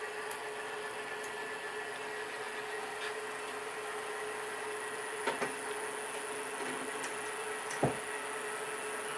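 HO scale model diesel locomotive running along the layout track, a steady motor hum and whine. A couple of clicks come about five seconds in and a sharper knock near the end, like wheels crossing rail joints.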